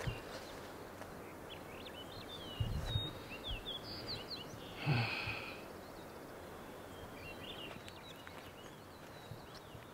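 Quiet forest ambience with small birds chirping in short, scattered calls, most of them in the middle of the clip and a few near the end. A few soft low thumps, the loudest about halfway through.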